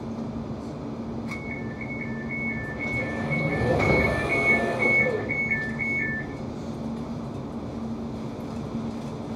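Door warning tones on a Class 710 London Overground train: a two-tone beep alternating high and low about twice a second for some five seconds, the signal that the doors are closing. A swell of rushing noise comes midway, over the train's steady low hum.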